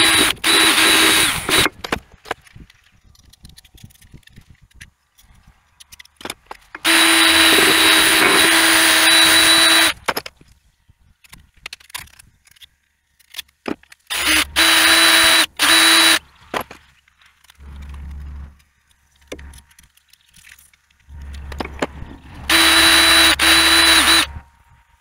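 Ryobi cordless drill spinning a wire brush against the thermostat housing to clean the gasket surface. It runs in four bursts of a few seconds each with a steady whine, and there are quiet handling clicks and scrapes between them.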